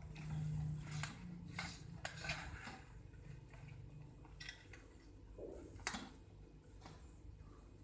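Faint, scattered clicks and light knocks of kitchenware being handled, with a low hum underneath.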